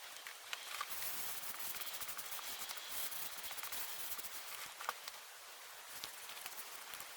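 Leather handbag being rubbed and handled during cleaning: a steady scratchy rubbing noise with scattered small clicks.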